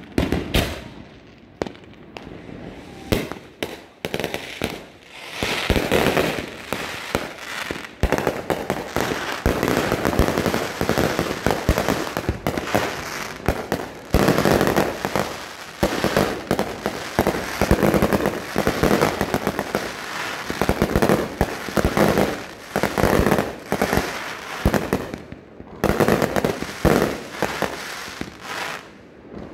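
Aerial fireworks going off in quick succession: many overlapping bangs and crackling bursts, sparser for the first few seconds and then near-continuous, with a brief lull shortly before the end.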